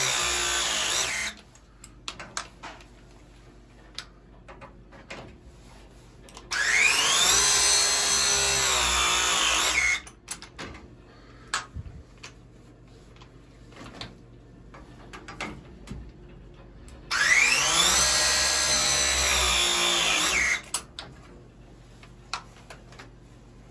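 Battery-powered pipe press tool crimping copper press fittings: its motor whine climbs in pitch, holds, and cuts off abruptly after about three and a half seconds. One cycle ends about a second in and two more follow, with light clicks and knocks of handling between them.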